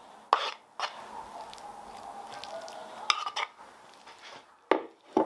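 Kitchen utensil knocking against a cooking pot as sweet pepper is spooned in as a layer: six short sharp clinks, coming in pairs, over a faint steady background.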